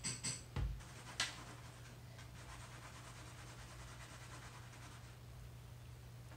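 Small handling noises of a plastic squeeze bottle and a candy mould on a wooden table: a few soft scratches, a dull thump about half a second in and a sharp click a little after a second. Then only quiet room tone with a low steady hum.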